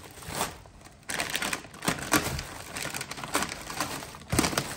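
Plastic bags and air-pillow packing crinkling and crackling in irregular clicks as hands dig bagged parts out of a cardboard box, with a sharper knock of the box near the end.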